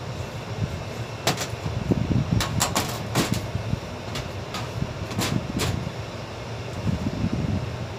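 A string of sharp metal knocks and clicks from hand work on a sheet-metal air-conditioning duct, most between about one and six seconds in. Under them runs the steady low hum of air-conditioning machinery.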